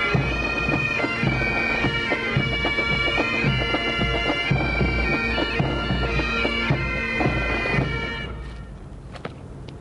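A pipe band, Highland bagpipes over their steady drone with drums, playing a march. The music stops about eight seconds in.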